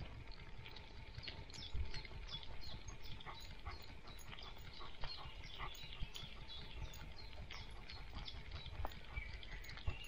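A dog on the move along a forest trail, heard close from a camera on its body: a low rumble of body movement and footfalls, with frequent short, high ticks.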